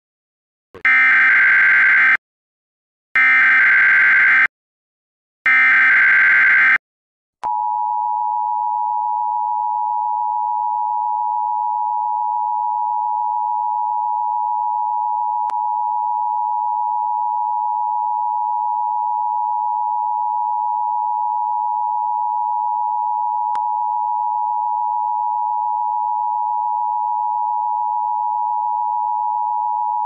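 Emergency Alert System alert opening: three short bursts of SAME header data, each about a second and a half long with short gaps, followed about seven seconds in by the long, steady EAS two-tone attention signal.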